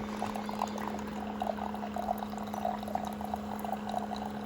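Keurig Duo coffee maker brewing: a steady low hum under gurgling, bubbling coffee streaming out of the machine.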